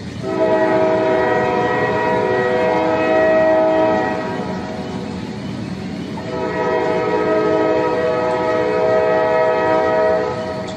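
Train horn sounding two long blasts of about four seconds each, a chord of several steady tones, with a short gap between them, over a steady rumbling noise.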